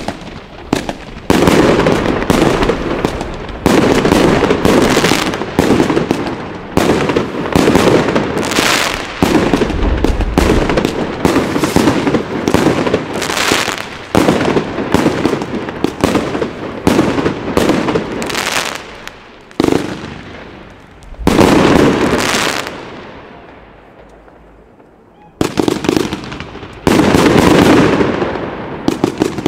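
Funke Iskra Line 'Green Goblin' firework battery firing: a fast, dense run of shots and bursts. The firing thins and fades about three quarters of the way through, then resumes loudly near the end.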